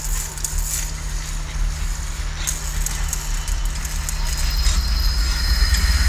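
Tram approaching on street rails, a low rumble growing steadily louder with a light clatter.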